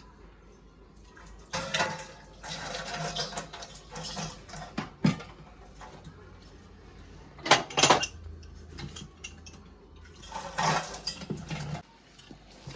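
Kitchen utensils and a bowl clattering in four short bursts, with sharp metal clinks and wet handling sounds, as food is worked by hand or spoon. A low steady hum underneath stops near the end.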